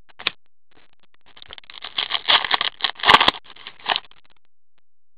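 Crackling and rustling of a shiny trading-card pack wrapper being crumpled while cards are handled, from about a second and a half in to about four seconds in, with a few sharp clicks near the end of it.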